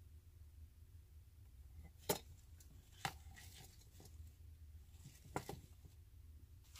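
Artificial flower stems being handled and pushed into a small vase: a few sharp clicks and faint rustles, over a low steady hum.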